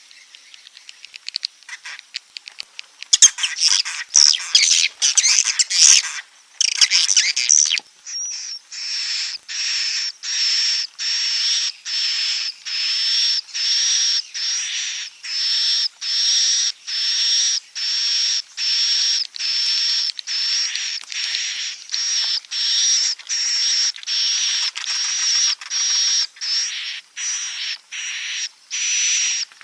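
Swiftlet roosting calls from a swiftlet-house lure recording. Scattered clicks and chirps give way to dense chattering, then about a third of the way in to a steady run of buzzy calls, roughly one and a half a second, each holding a high tone.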